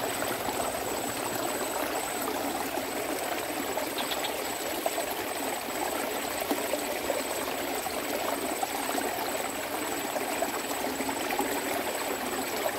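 Steady rush of running water, as of a small ditch or stream flowing, with a thin high steady tone above it and a faint brief chirp about four seconds in.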